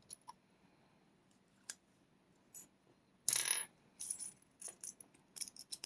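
Small metal lock parts clicking as a pin-tumbler rim cylinder's plug is slid back into its housing, with a brief metallic clatter a little over three seconds in.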